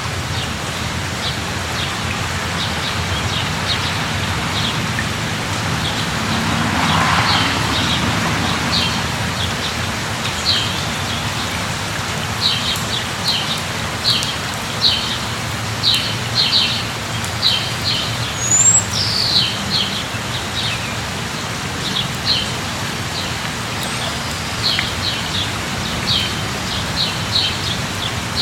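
Steady suburban rain falling, with a bird calling in short, quick high chirps that come more often in the second half. There is a brief rising-and-falling rush of noise about seven seconds in.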